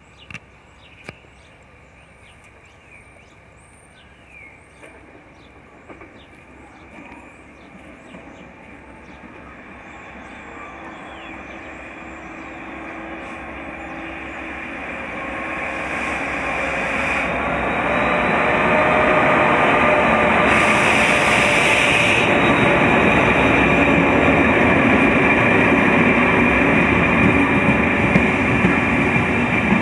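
Irish Rail 201 Class diesel-electric locomotive 220 hauling a rake of Mk4 coaches approaches, its engine and wheels growing steadily louder over about ten seconds. The locomotive then passes and the coaches run by with a steady, loud rumble of wheels on rail.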